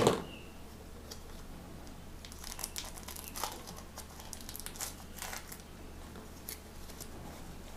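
Plastic wrapping crinkling and rustling in short, scattered spells as it is handled, after one sharp knock at the very start.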